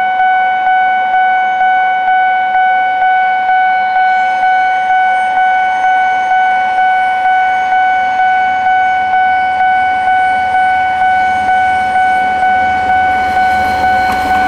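Japanese level-crossing warning bell ringing steadily at about two strikes a second, each strike a single clear tone that fades before the next. Near the end the DD13 diesel locomotives' engines and wheels rise beneath it as the train reaches the crossing.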